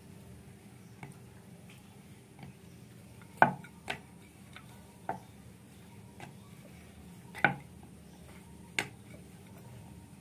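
Sharp wooden knocks of a rolling pin and round wooden board as flour dough is rolled out, coming irregularly every second or so, with two much louder knocks about three and a half and seven and a half seconds in.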